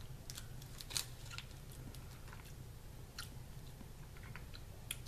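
Faint chewing and crunching of Ramune candy tablets (pressed sugar tablets): a scatter of small sharp crunches, the sharpest about a second in, over a steady low hum.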